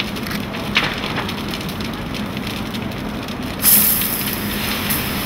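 Large compartment fire burning close to flashover, with crackles and cracks from burning furniture. About three and a half seconds in, a loud hiss starts suddenly as a fire hose spray is turned onto the flames.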